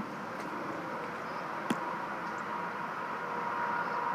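Steady background hum and hiss with a faint high tone, and one brief click about a second and a half in.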